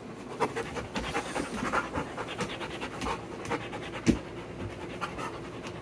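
Labrador retriever panting quickly and steadily, with a few sharp taps, the loudest about four seconds in.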